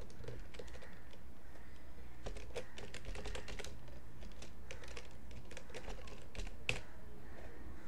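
Typing on a computer keyboard: quick runs of keystrokes with short pauses between them, and one louder click near the end, over a faint low hum.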